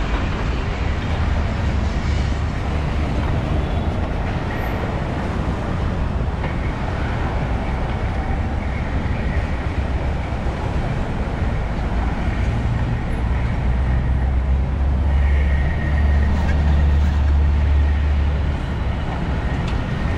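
Busy city street traffic: a steady wash of engine and tyre noise with a deep rumble, which swells for a few seconds near the end as a heavier vehicle goes by.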